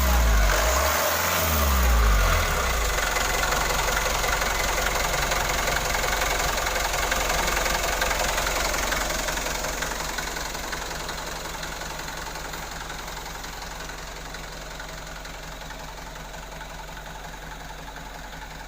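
An engine revved with quick throttle blips for about the first two seconds, then left to idle steadily, its sound gradually settling lower and quieter.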